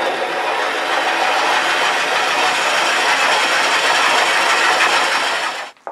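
A 1-inch twist drill bit boring into a spinning wooden pepper mill body on a lathe: a loud, steady grinding of the bit cutting wood, which stops abruptly near the end.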